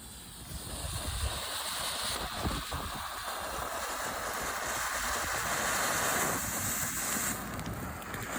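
Small ground firework spraying sparks with a steady hiss that starts about half a second in and eases off near the end, with wind rumbling on the microphone.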